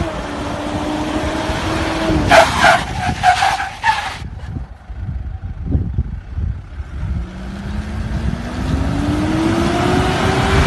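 Off-road 4x4 engine running under load, giving a run of about five sharp revs in quick succession, easing off, then revving up steadily with rising pitch.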